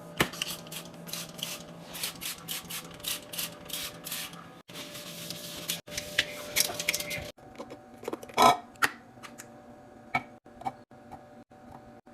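Restock ASMR handling sounds: a quick run of short clicks, taps and clatter from containers and packaging being handled and set in place, with a louder knock a little past halfway through.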